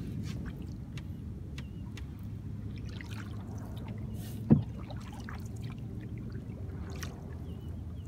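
Canoe being paddled: small paddle splashes and drips over a low steady rumble, with one sharp knock about halfway through.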